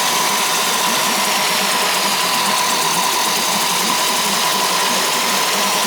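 Two-stroke outboard motor running steadily in a test barrel, with a constant high whine over the engine note. It is running again after a no-start fuel problem.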